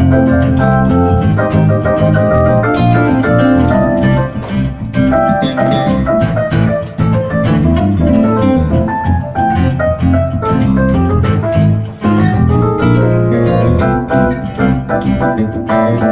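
Live band playing an instrumental passage led by a stage keyboard on an organ sound, with quick rising runs a few seconds in and again near the end, over an electric guitar and a steady beat.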